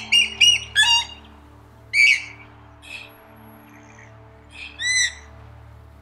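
Dusky moorhen calling, with a quick run of calls in the first second, then single calls about two, three and five seconds in, over soft background music.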